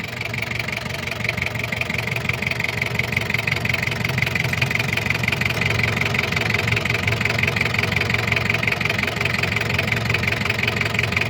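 Toyota 2L four-cylinder diesel engine idling with a rapid, even clatter, getting a little louder over the first few seconds. This is diesel knock of the kind that adjusting the injection pump's timing advance is meant to cure.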